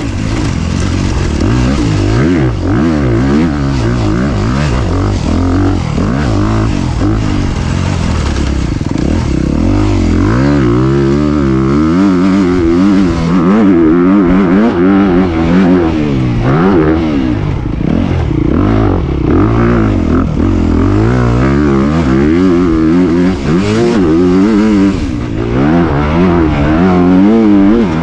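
Honda CRF250RX's single-cylinder four-stroke engine revving up and letting off again and again as the dirt bike is ridden hard, heard up close from on the bike.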